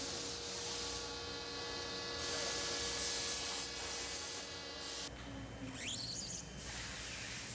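Steady hiss and low hum with several held tones, shifting abruptly a few times, and a short rising whine about six seconds in.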